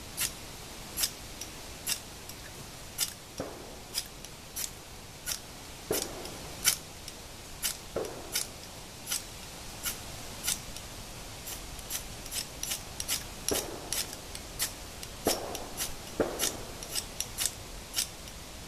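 Fire-starter rod being struck over and over, short sharp scrapes about two a second in an uneven rhythm. It throws plenty of sparks, but the tinder bundle does not catch.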